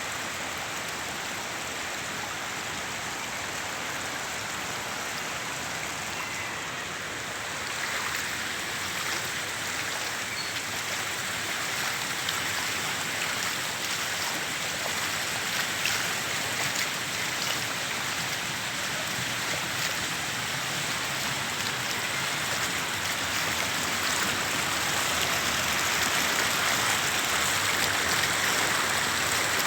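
Steady rushing of water, an even hiss with no distinct strokes, growing a little louder about eight seconds in and again toward the end.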